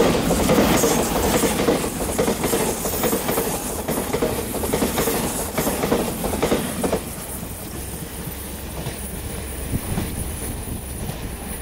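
Electric express train passing close at speed: a loud rushing rumble with its wheels clacking over the rail joints. About seven seconds in the sound drops to a quieter, steadier low rumble of a train approaching from farther off.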